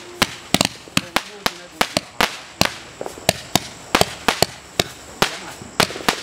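A 200-gram, 83-shot zipper fan cake (Pyro Packed Ripper) firing in rapid succession: a fast train of sharp bangs, about three a second, as shots launch and break.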